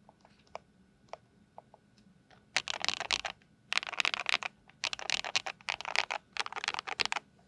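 Custom KBD67 Lite R2 mechanical keyboard with lubed KTT Strawberry linear switches on a polycarbonate plate and ABS doubleshot keycaps, typed on. A few scattered keystrokes come first, then four quick bursts of rapid keypresses.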